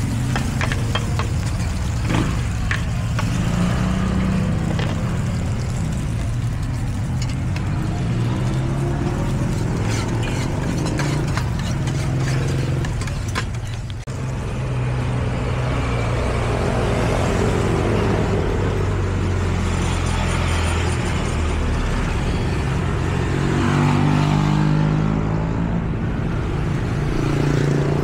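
For the first half, a metal spatula scraping and clinking against a large wok while char kueh teow fries, over a steady hum of street traffic. From about halfway, motorcycle engines running and passing, their pitch rising and falling near the end.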